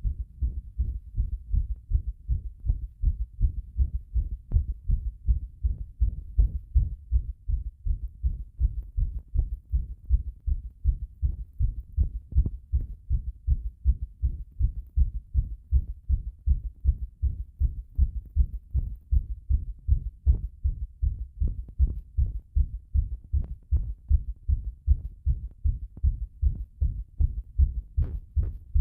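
A human heartbeat recorded close up against the chest: a steady, regular run of low, muffled thumps.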